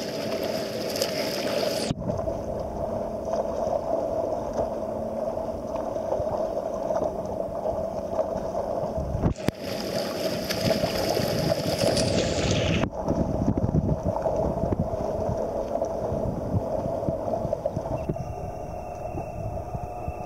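Sea water sloshing and splashing around a camera held at the surface as swimmers in wetsuits swim front crawl alongside, their arm strokes splashing; the sound is muffled, and the treble drops out abruptly at a couple of points.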